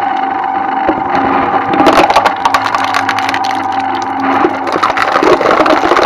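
Twin-shaft shredder running with a steady motor hum while its blades crack and crunch material apart, in a dense burst about two seconds in and again from about four and a half seconds on.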